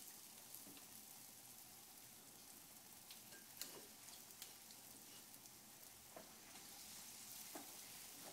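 Faint sizzling of tempura-battered, panko-coated vegetables frying in hot oil in a frying pan, with a few small pops scattered through.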